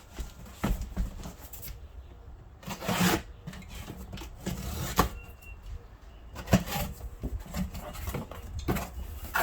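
A cardboard shipping box being opened and handled: rubbing and scraping of cardboard with scattered knocks, and a longer scrape about three seconds in.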